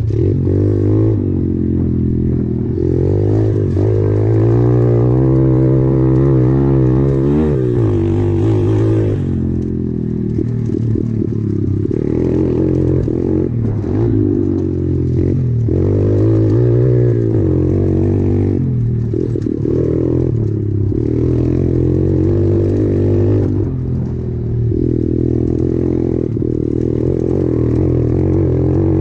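SSR 125 pit bike's single-cylinder four-stroke engine running under way on a dirt track. Its pitch rises and falls over and over as the throttle opens and closes. Light clattering comes from the bike over the rough ground.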